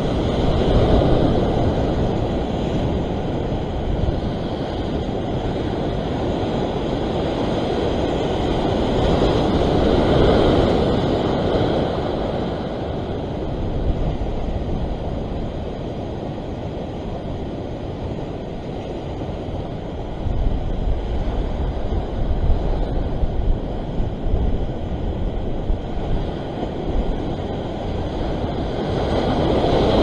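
Ocean surf breaking and washing over the rock ledge, swelling louder about a second in, around ten seconds in and again at the end, with wind rumbling on the microphone that turns gusty in the last third.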